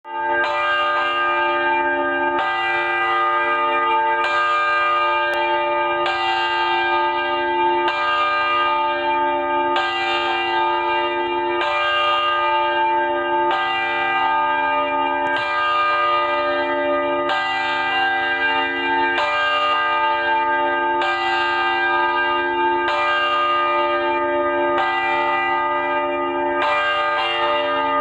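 A church bell tolling slowly, struck about once every two seconds, each stroke ringing on into the next.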